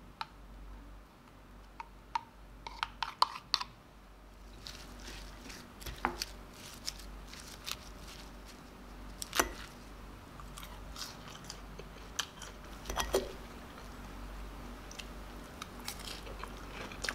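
Scattered crisp crunches and clicks at an irregular pace, a few louder than the rest, over a faint steady low hum.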